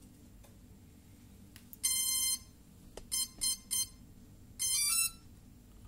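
Electronic beep tones from the Cheerson CX-20 quadcopter's electronics powering up: one long beep, then three short beeps, then a quick rising run of notes, typical of a drone's startup tones. A single click comes between the long beep and the short ones.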